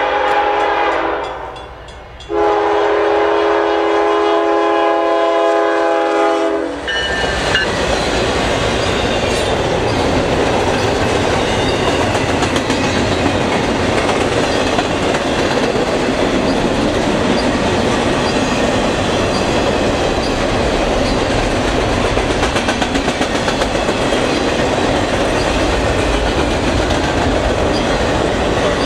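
CN ES44DC locomotive's multi-chime air horn sounds a short blast and then a long blast as the freight train approaches. Seven seconds in, the locomotive reaches the microphone and the loud passing rumble takes over. It runs on as double-stack container cars roll by with steady wheel clatter on the rails.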